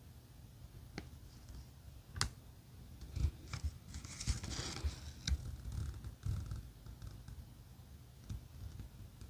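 Small objects being handled on a table: scattered clicks and light knocks, with a short scratchy rustle about four to five seconds in.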